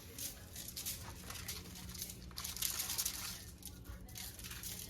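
Aluminium foil crinkling and rustling in short, irregular bouts as the fish lying on it is handled and seasoned.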